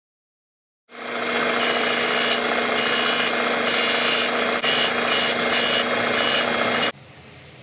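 Electric power tool running with a steady hum, starting suddenly about a second in and cutting off suddenly near the end. Over the hum is a hiss that comes and goes.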